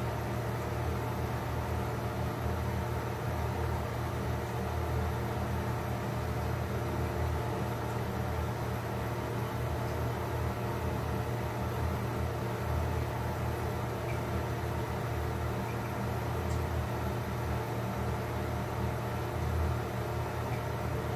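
A steady low mechanical hum that holds an even level throughout, with no clear breaks or strokes.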